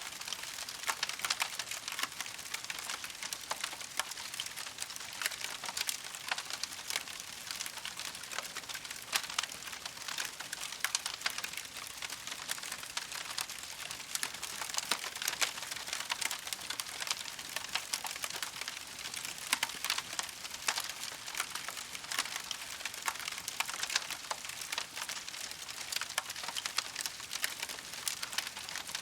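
Campfire crackling steadily: a dense, continuous run of small pops and snaps over a soft hiss.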